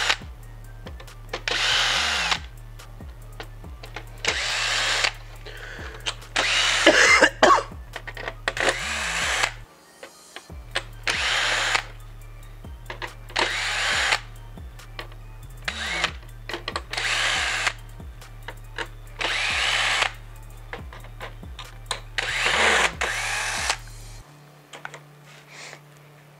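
Cordless drill-driver spinning in short runs of about a second, roughly every two to three seconds, driving small screws into a plastic RC truck bed plate one after another.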